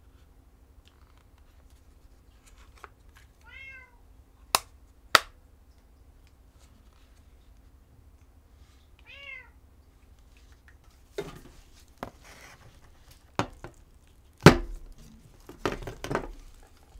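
A cat meows twice, short rising-and-falling calls a few seconds apart. Two sharp clicks follow the first meow, and from about two-thirds of the way through, the clicks, knocks and rustles of cameras being handled, with the loudest knock near the end.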